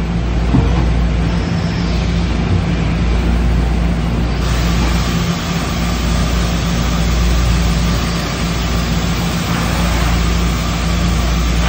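Brother TC-324N CNC vertical machining center running, with a steady low machine hum. A steady hiss comes in about four and a half seconds in.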